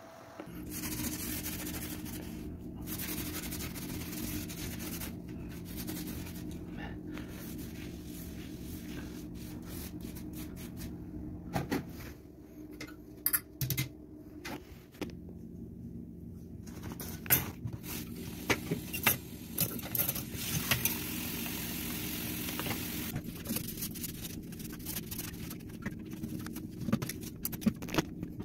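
Vacuum cleaner running steadily, switched on about half a second in, with its nozzle in a bathroom ventilation duct sucking out dust. Scattered clicks and knocks from the nozzle and grille being handled.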